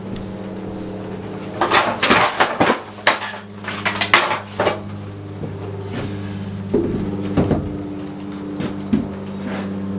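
Clattering and knocking of hard objects being moved and set down: a dense run of knocks in the first half and a few single knocks later, over a steady low hum.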